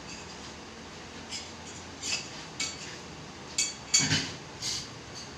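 A series of about six sharp clinks of hard objects knocking together, each with a short ringing tail; the loudest, about four seconds in, has a dull knock under it.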